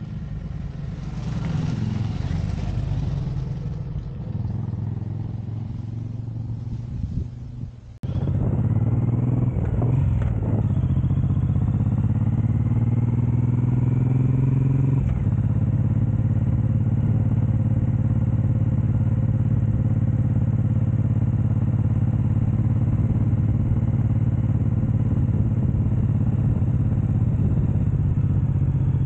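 Suzuki Boulevard M109R's 1783 cc V-twin engine. First it rises and fades as the bike passes by. About eight seconds in it is heard close beside the exhaust, climbing in pitch as the bike accelerates, then dropping with an upshift about fifteen seconds in and settling into a steady cruise.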